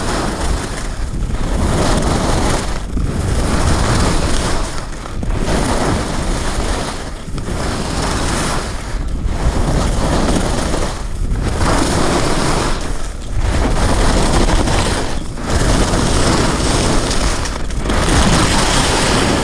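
Skis sliding and carving down a groomed snow piste, with wind rushing over the microphone: a loud, steady rush that dips briefly about every two seconds as the skier links turns.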